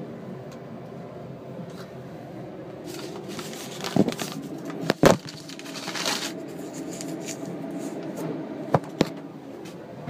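Steady hum and hiss of air moving through an airplane lavatory ventilation vent. Rustling and two heavy knocks from the phone being handled come about four and five seconds in, with two sharp clicks near the end.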